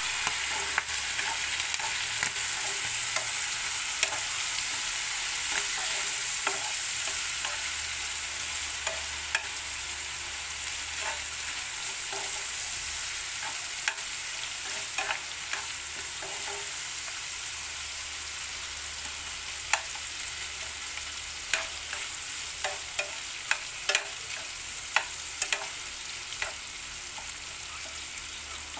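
Ground pork and onions sizzling steadily in a frying pan while a metal spoon stirs through it, with sharp clicks and scrapes of the spoon against the pan that come more often in the second half.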